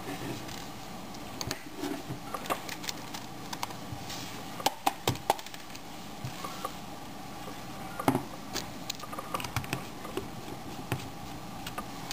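Irregular light clicks and taps as a Creative Zen Vision W media player and a small Phillips screwdriver are handled on a wooden table. There is a cluster of sharper clicks about halfway through and another single sharp click about eight seconds in.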